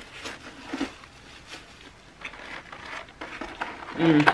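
Light, scattered crinkles and taps of a foam takeout clamshell and plastic fork being handled while eating. A brief voiced sound comes near the end.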